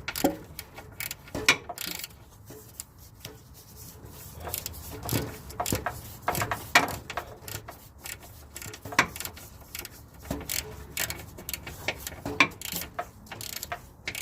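Hand ratchet clicking in short, irregular runs as a bolt on a sway bar bushing bracket is tightened.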